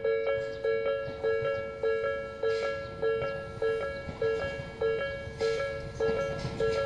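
Japanese railway level-crossing alarm ringing, an electronic two-tone ding repeating about one and a half to two times a second. Under it the low rumble of an approaching electric train grows louder in the second half.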